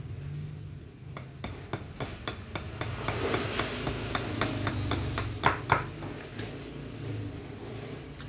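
Hammer tapping lightly and quickly, about four taps a second, with a slight metallic clink, as a wooden knife handle is worked. A steady low hum runs underneath.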